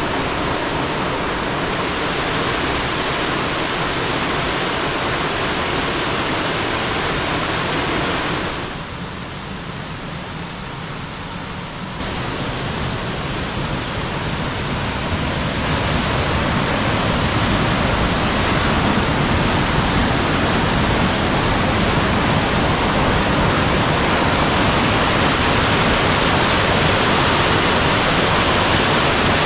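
Mountain stream water rushing and cascading over rocks, a steady full noise. It drops quieter for a few seconds about a third of the way in, then builds back up louder.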